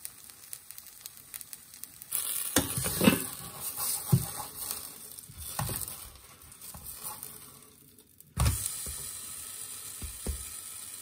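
Banana pancake batter sizzling in hot oil in a nonstick frying pan, with a plastic spatula scraping and knocking against the pan as the pancake is lifted, flipped and pressed down. The sizzle is faint at first, turns louder about two seconds in, and jumps louder again after about eight seconds.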